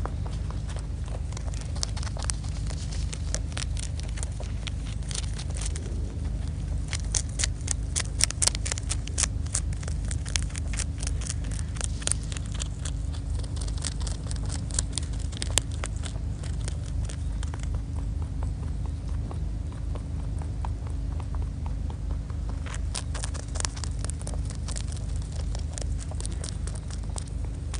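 A rabbit chewing dry fallen leaves: rapid, crisp crunching clicks that come in bouts, busiest around a third of the way in and again near the end, over a steady low rumble.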